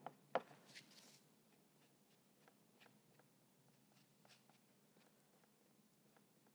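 Near silence with faint taps and light rubbing, clearest in the first second, as a folded towel dabs black acrylic paint onto the gritty joint-compound surface of the painting.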